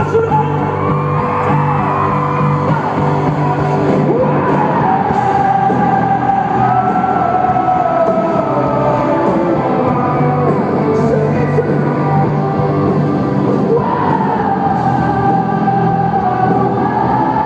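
Live pop-rock band playing with singing, heard loud from within the audience in a large hall, with whoops and yells from the crowd.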